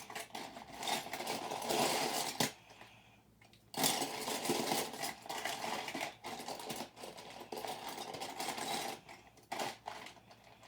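Loose plastic LEGO bricks rattling and clattering as a hand rummages through a pile of pieces, with a brief lull about three seconds in.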